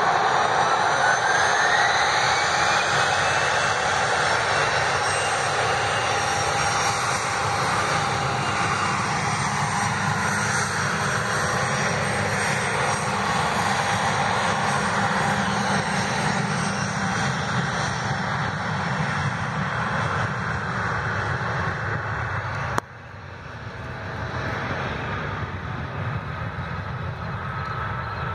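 Regional jet's turbofan engines at takeoff power, with a whine rising in pitch over the first few seconds, then a steady loud jet noise as the aircraft runs down the runway. Near the end there is a click and the noise drops suddenly, continuing quieter.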